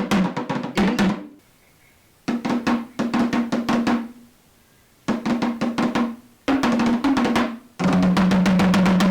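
Rapid drumming in short bursts of one to two seconds, each separated by a brief pause, with a steady low pitched tone held under each burst.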